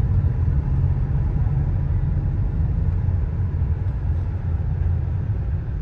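Car interior noise while driving: a steady low rumble of engine and road noise heard inside the cabin.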